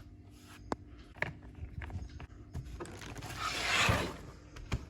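Plastic back cover of a laptop being fitted and pressed shut: several sharp plastic clicks and a brief scraping slide about three seconds in.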